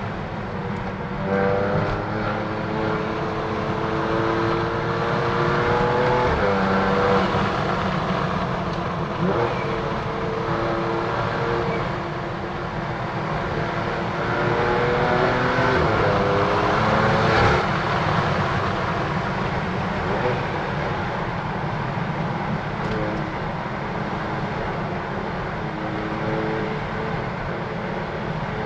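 BMW F80 M3's twin-turbo straight-six with a straight-piped M Performance exhaust, pulling hard through the gears. The engine note climbs in pitch and drops back at each upshift, then settles to a steadier note in the last several seconds.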